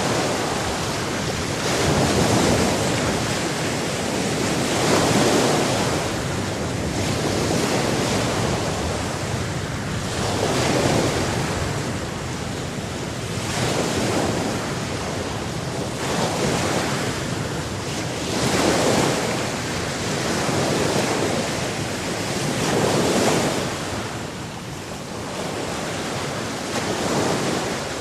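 Sea waves breaking and washing up, a continuous surf noise that swells with each wave every two to three seconds, with some wind rumble on the microphone.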